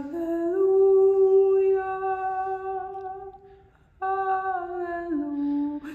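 A person's voice singing wordless, hummed notes, each held long. A note steps up and is held, then dies away. After a brief pause, a second held note steps back down.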